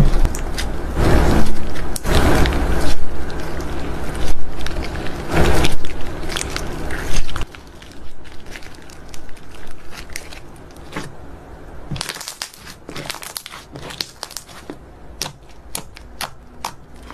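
Clear red slime with glitter and small bits mixed in, worked by hand: loud, dense squishing and crackling as it is pressed and kneaded. About seven seconds in it turns much quieter, leaving scattered sharp clicks and pops as the slime is stretched and pressed flat.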